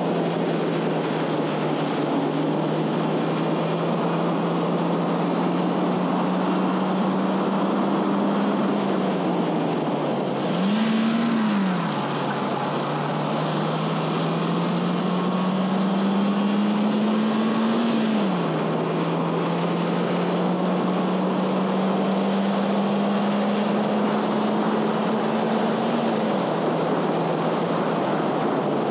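2011 Honda Fit Sport's 1.5-litre four-cylinder engine at track pace, its note climbing slowly and then dropping off sharply three times, with a brief rise and fall of revs a little before the middle. Steady wind and road noise run underneath.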